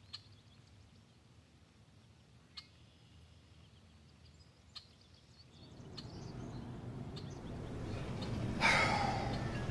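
Quiet outdoor ambience with a few faint ticks, then a steady background of outdoor noise builds and a bird gives a short call near the end.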